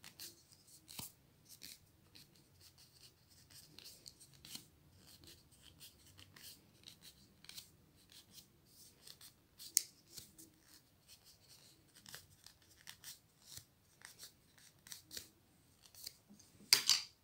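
Yarn loops being slid off a clear plastic ruler: faint, irregular scratchy rustles and small ticks as the wool drags along the plastic, with a sharper, louder scrape near the end.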